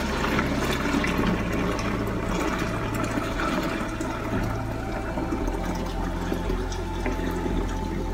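Milk pouring in a steady stream from a stainless steel pot through a mesh strainer into a container, a continuous splashing run of liquid.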